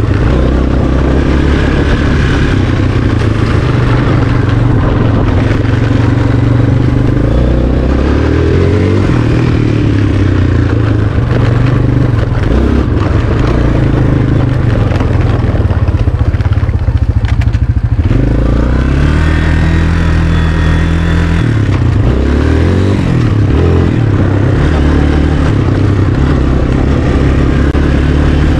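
Sport quad (ATV) engine running as it is ridden, its pitch rising and falling with the throttle, with a clear rev around two-thirds of the way in.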